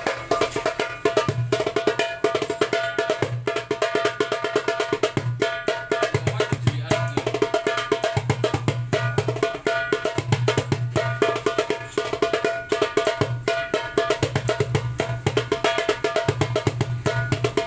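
9-inch darbuka with a Remo plastic (mylar) head played in a fast, continuous rhythm. Rapid, sharp ringing finger strokes on the rim run under deep bass strokes in the centre of the head, which come back every second or two.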